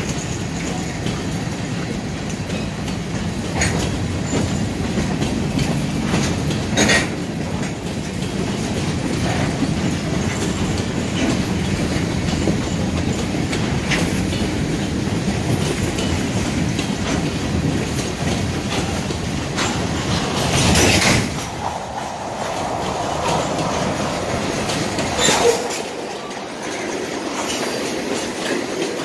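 Freight train of covered hopper cars and a tank car rolling past: a steady rumble of wheels on rail with clickety-clack and sharp clicks now and then, the loudest about 21 seconds in. The low rumble thins out in the last few seconds.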